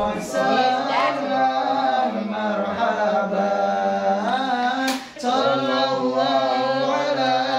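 Several voices chanting an Islamic sholawat together in long held notes, with a short break and a click about five seconds in.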